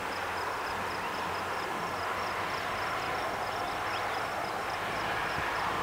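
A steady rushing noise of open-air ambience that grows slightly louder toward the end, with a faint high pulse repeating several times a second.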